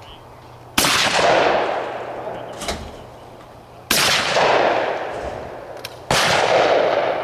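Shotgun fired at clay targets: three sharp blasts, about three seconds and then two seconds apart, each followed by a long echo that fades over a second or two. A fourth shot begins at the very end.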